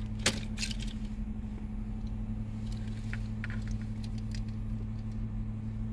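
A steady low electrical hum, with a couple of sharp clicks in the first half second and a few faint ticks after.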